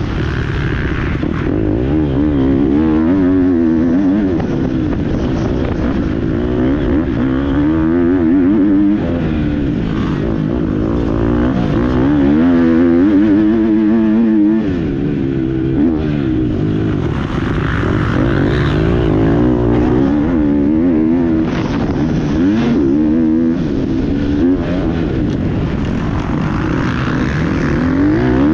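GasGas MC 250 motocross bike's engine under hard riding, its pitch climbing and dropping again and again as the throttle is opened and shut, heard close up from an onboard GoPro.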